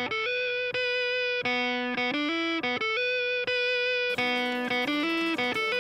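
Background music: electric guitar playing a slow line of held, ringing notes.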